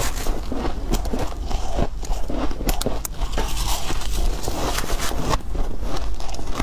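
Soft white ice being crunched and chewed in the mouth, with a spoon scraping into the ice block: a dense, irregular crackling with a few sharper clicks about three seconds in.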